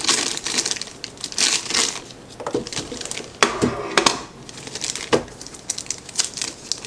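A clear plastic bag crinkling as it is handled and opened to take out a camera battery and charger, with a few sharp clicks between about three and five seconds in.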